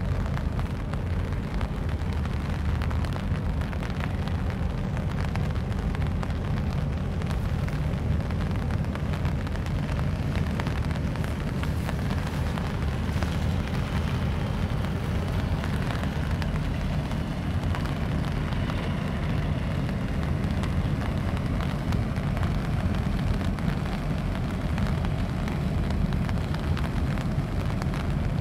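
Wind buffeting the microphone in a steady low rumble, with rain falling.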